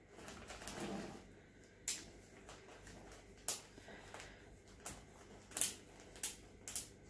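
Zip-top plastic bag full of Oreo cookies being pressed shut by hand: a soft plastic rustle, then about five sharp clicks as the seal is worked closed.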